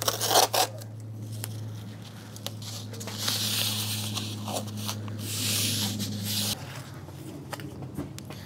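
Blue painter's tape pulled off the roll in three ripping strips, a short one at the start and two longer ones in the middle, as it is laid onto a carpeted box. Under it a steady low hum runs and cuts off about two-thirds of the way through.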